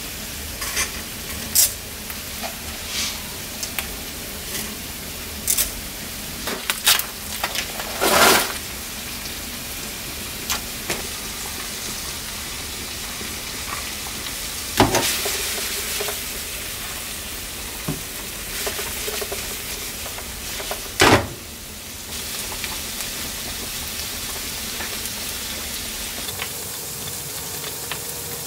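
Sliced onions, garlic and green chillies frying in a pan with a steady sizzle. A few sharp knocks and smaller clicks come now and then as the pan is handled and stirred.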